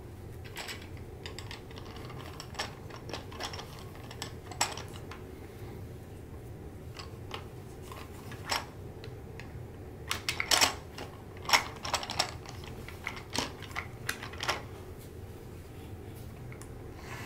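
Irregular plastic clicks and taps as a toy train's plastic tender is handled and its wheels are set onto plastic track. Sparse at first, then a quicker cluster of sharper clicks about two-thirds of the way through, over a low steady hum.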